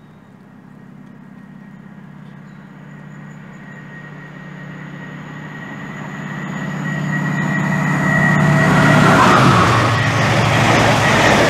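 Class 68 diesel locomotive hauling a rake of Mk3 coaches, approaching under power with a steady engine thrash that grows louder, described as a lot of noise and massive thrashing. About eight seconds in, the train reaches and passes, and the rush of wheels on rail takes over.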